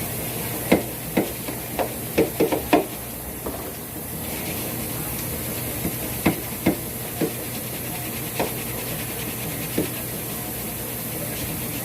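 Short, sharp knocks and clatters of containers and fridge parts being handled and scrubbed while cleaning out a refrigerator, bunched in the first three seconds and scattered after. Under them is a steady hiss from a washing machine running.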